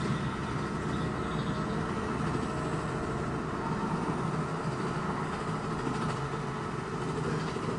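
A steady, dense low rumble of noise with no distinct events.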